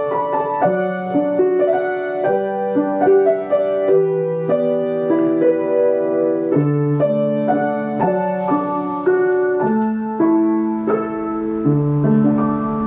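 Piano music: a melody of single notes changing every half second or so over lower held chords.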